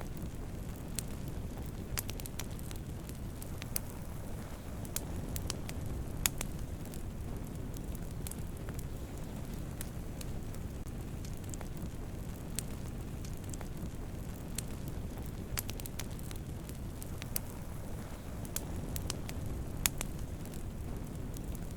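Wood campfire burning: a steady low rush of flames with scattered sharp crackles and pops, a few louder pops standing out.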